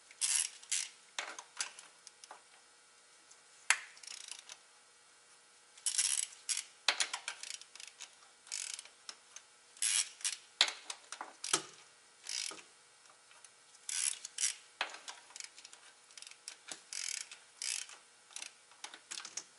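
Hand ratchet clicking in short irregular runs, with light metal clinks, as a 19 mm cut-out socket turns the nuts of the injector fuel lines loose.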